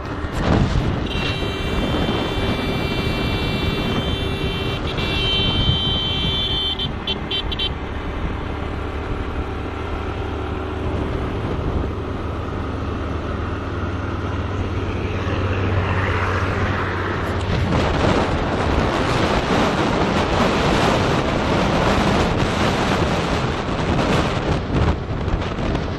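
Engine and road noise of a moving vehicle on a highway. A vehicle horn sounds for about six seconds, starting about a second in, with a short break midway and a few stuttering toots before it stops.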